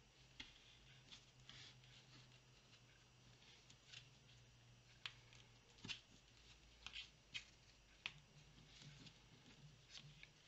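Faint rustling and light clicks of a paper tag and thin string being handled as the string is tied through the tag's hole.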